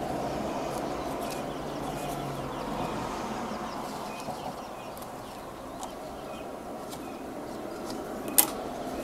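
Singer Limited Edition electric sewing machine running, stitching piping onto upholstery fabric with a steady motor hum that eases off slightly in the middle. A single sharp click comes near the end.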